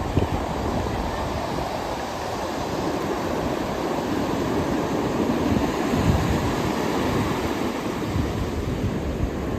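Ocean surf breaking and washing ashore: a steady rush of water, with a brief low rumble about six seconds in.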